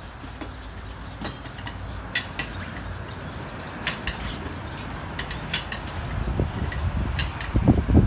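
Scattered light metallic clicks and clinks of metal parts and tools being handled at a shop hydraulic press. A low knocking rumble builds over the last two seconds.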